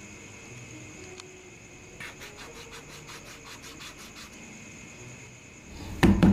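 Pencil scratching quickly on paper in a regular run of short strokes for about two seconds, over a faint steady hiss with a high whine. Near the end, a sudden burst of loud knocks.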